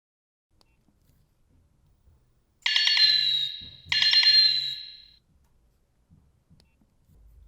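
A Nokia 3220 ringtone playing through the phone's small speaker: two matching bell-like tones, about two and a half seconds in and a second and a quarter apart. Each starts sharply and fades out.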